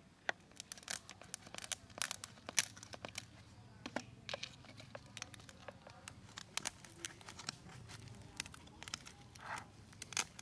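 Irregular clicks, crackles and scrapes of a cooked horseshoe crab being handled and picked apart inside its shell with a thin stick.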